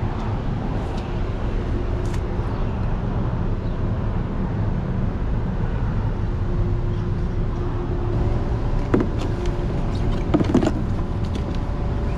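Steady low rumble of a Hummer H3 idling, heard from inside the cab, with a few brief clicks and rustles late on.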